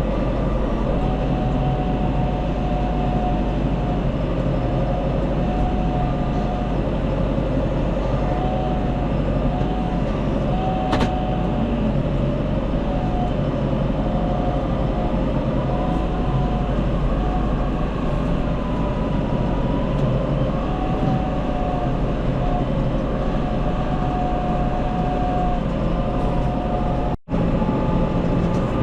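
Tractor engine running steadily under load while handling hay bales, with a whine that drifts up and down in pitch. The sound breaks off for an instant near the end.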